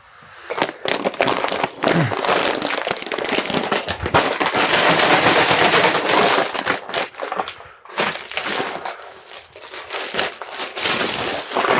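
Plastic packing wrap crinkling and crackling as it is handled and wrapped around an item.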